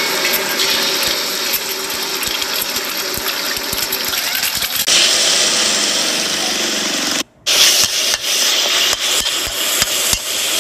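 Hot oil sizzling in a steel wok as chopped onion and chilli are stir-fried, with a metal spatula scraping and clicking against the wok. The sound drops out for a split second about seven seconds in.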